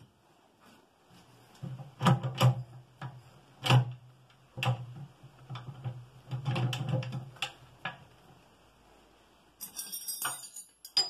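Sharp metallic knocks and clunks as the electric motor on its sliding mount and the V-belt and pulley are handled, with a low steady hum under them from about a second and a half in until about eight seconds in. Near the end comes a short burst of light rattling clicks.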